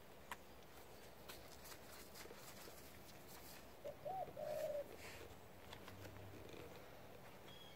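A dove cooing once about halfway through: a short rise-and-fall note running into a held note. It sounds over faint rustles and light ticks of gloved hands working loose soil.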